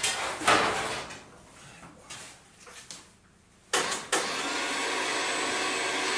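Old Ski-Doo snowmobile pull-started by its recoil cord: two sharp pulls at the start, another about three and a half seconds in, and the two-stroke engine then catches and runs steadily.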